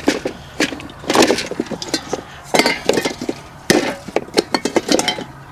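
Rummaging through metal tools and parts: a fast, irregular run of clinks, clatters and knocks.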